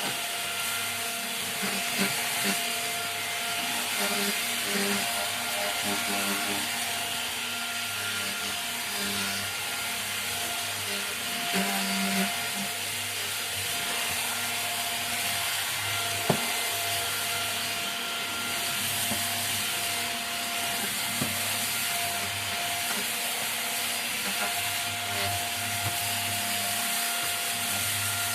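Rowenta Air Force Flex 560 cordless stick vacuum running steadily with a thin whine, its floor head rubbing across the floor, with a few light knocks, the sharpest about sixteen seconds in.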